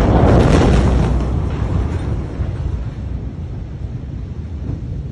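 Aftermath of a massive explosion's blast: a loud low rumble with crackling and clatter in the first second, fading slowly over several seconds.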